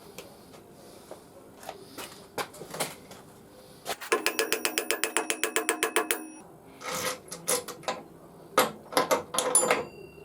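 Workshop clatter of metal tools and parts: scattered sharp clinks and knocks. About four seconds in comes a run of fast, even ratchet-like clicking, some ten a second, lasting about two seconds.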